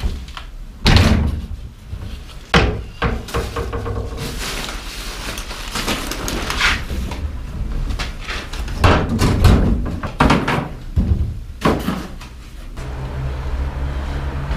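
Plastic wheelie bin lids being lifted and dropped shut and rubbish thrown in, giving a series of loud bangs and knocks.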